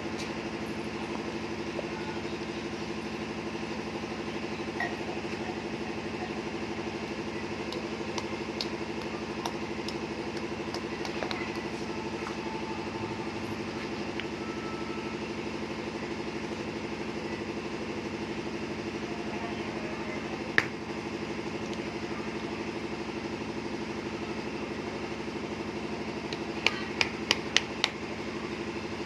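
Steady motor hum running evenly throughout, with a single sharp click about two-thirds of the way through and a quick run of five taps near the end.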